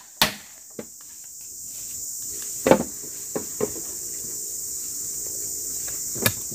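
A few sharp knocks on the top of an upright bamboo pole, striking it down into the ground as a post, the loudest about two and a half seconds in. A steady high-pitched drone of insects runs underneath.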